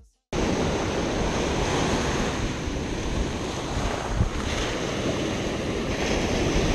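Ocean surf breaking and washing up the beach, with wind buffeting the microphone; it cuts in abruptly just after the start.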